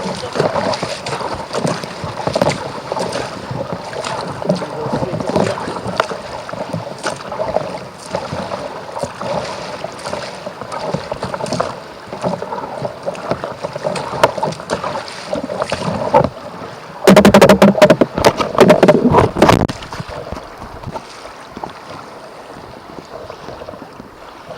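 Water splashing and lapping around a kayak as it is paddled, with wind on the microphone. About seventeen seconds in comes a loud, distorted rush of noise lasting about three seconds.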